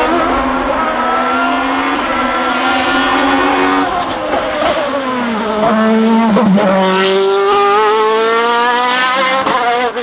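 Reynard K02 Formula 3000 single-seater's engine at high revs on a hill-climb run, its pitch stepping up and down. The note drops low about halfway through, then climbs steeply and grows a little louder as the car passes close and pulls away.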